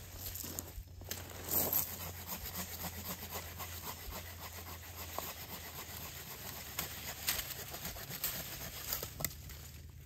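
Folding pruning saw cutting through a dry, dead branch: a run of quick rasping saw strokes.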